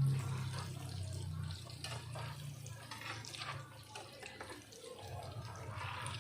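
Tofu and tempeh frying in hot oil, sizzling with irregular crackles, over a low steady hum.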